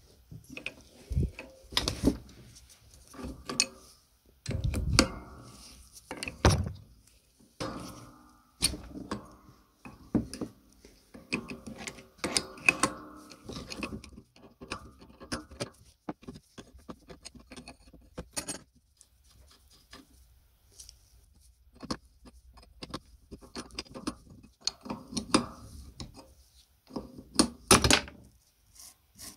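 Spanners and an adjustable wrench working a nut off the metal throwing arm of a clay-pigeon trap: irregular metallic clinks, knocks and scraping of steel tools on metal, with a few louder knocks.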